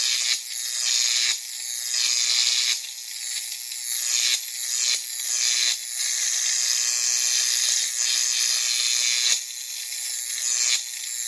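High-pitched hissing, buzzing masking noise for tinnitus, its energy almost all in the treble, changing texture with abrupt breaks every second or two.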